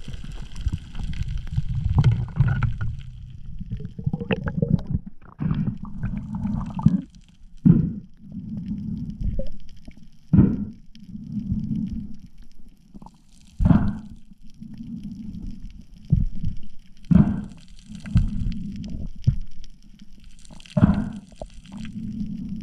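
Muffled underwater noise of water moving against an action-camera housing, coming in low rumbling pulses about a second apart, with a few sharp knocks now and then as a speared grouper is handled at close range.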